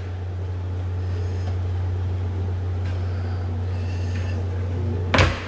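A steady low hum, with a single sharp knock near the end.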